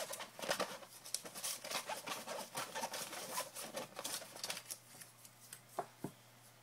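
Folded paper raffle slips rustling as a hand stirs them inside a fitted cloth baseball cap: a dense papery crackle that thins out after about four and a half seconds to a few light clicks.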